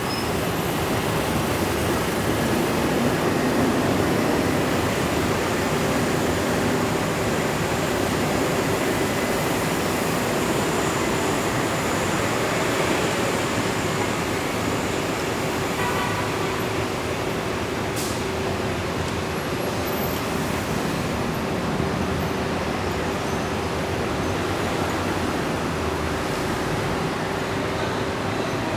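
Dense city street traffic: a continuous wash of engine and tyre noise with a steady low drone running through it.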